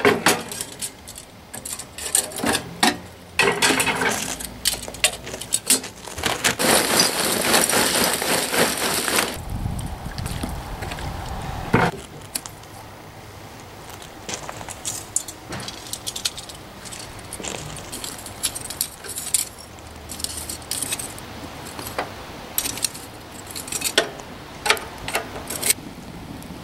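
Charcoal briquettes being poured and clattering into a barbecue grill. There is a dense run of pouring about six to nine seconds in, with scattered clinks and knocks before and after.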